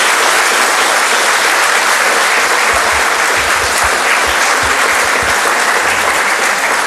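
An audience applauding, dense and steady.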